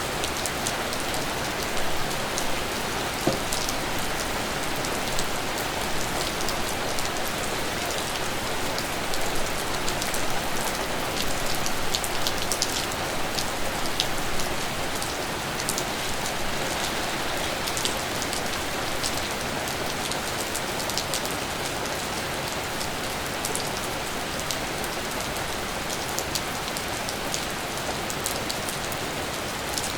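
Steady rain falling, a constant hiss with many distinct drops ticking and pattering close to the microphone.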